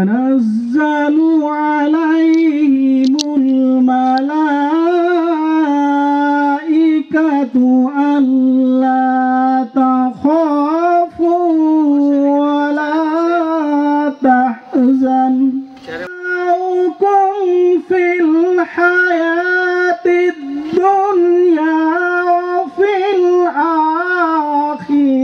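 A single unaccompanied voice chanting in long, melodic, drawn-out phrases with wavering held notes, in the manner of Quran recitation (tilawat). It breaks off briefly about two-thirds of the way through, then resumes a little higher.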